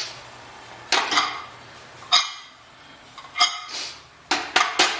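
Stainless steel pressure cooker and its lid clanking as they are handled: single sharp metal knocks with a short ring about a second apart, then a quick run of them near the end.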